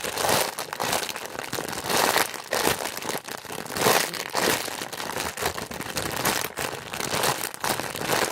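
Crinkling and rustling of plastic and foam as a squishy toy is handled and squeezed close to the microphone, rising and falling in waves every second or two.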